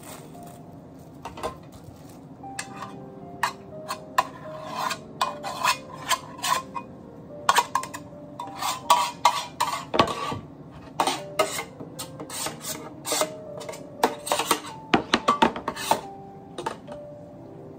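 A table knife scraping and clicking against the inside of a metal loaf tin as butter is spread over it, a run of short, uneven scrapes and taps. Soft background music plays underneath.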